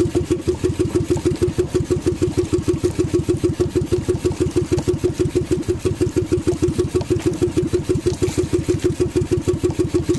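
Small engine of a motorized outrigger fishing boat running steadily at low speed, an even putt of about seven beats a second.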